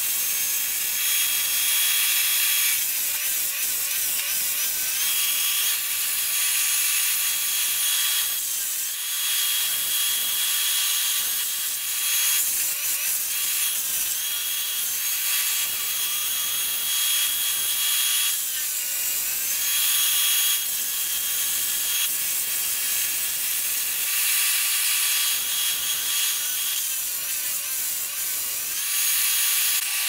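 Chainsaw running and cutting through wood, a continuous high-pitched engine whine that shifts in pitch and character every few seconds.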